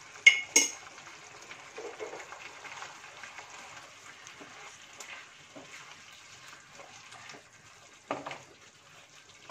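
Tamarind pulp with peanuts and chillies simmering and sizzling faintly in a pan, with a wooden spatula stirring it. Two sharp knocks come just after the start, and a short louder scrape about 8 seconds in.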